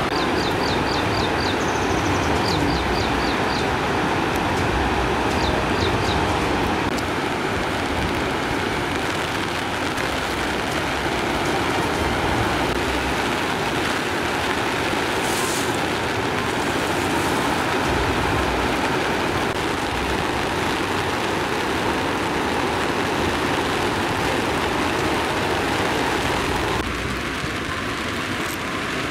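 Floodwater rushing and churning through the open gates of a river dam, a loud, steady roar of water that drops slightly near the end. A small bird chirps in a few quick runs of short high notes in the first few seconds.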